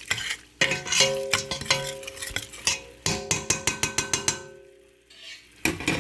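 A spoon stirring a tomato-paste and oil mixture in a cooking pot, clinking against the pot so it rings, with a quick run of taps about halfway through. It goes almost quiet for a moment near the end.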